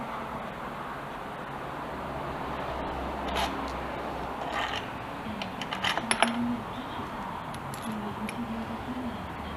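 A few light metallic clinks and clicks of small metal parts or tools being handled, bunched together about six seconds in, over a steady background hiss.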